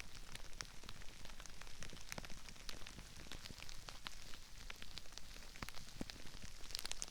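Crispy rice crackling and popping in a dense scatter of tiny, irregular clicks, picked up all around a binaural microphone, with a brief cluster of sharper crackles near the end.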